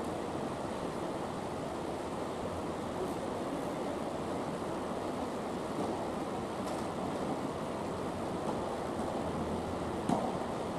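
Steady rushing background noise in an indoor tennis hall, with a few sharp racket-on-ball hits from a rally, about three to four seconds apart. The loudest hit comes near the end.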